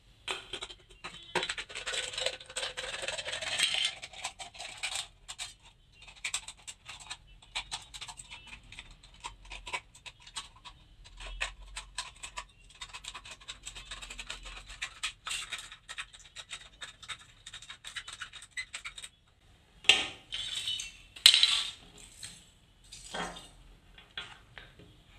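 Scissors snipping through a thin aluminium drink can, with rapid irregular clicks and crinkling scrapes of the can's metal. There are a few louder clatters near the end.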